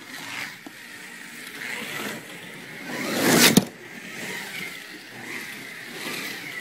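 Slot car's small electric motor whining as it laps the track, its pitch rising and falling, with a loud close pass about three seconds in that cuts off suddenly.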